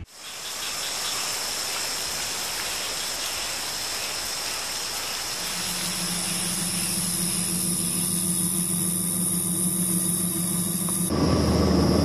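Steady hissing noise. A low steady hum and a high steady whine join about halfway in, and near the end the sound changes abruptly to something louder and lower.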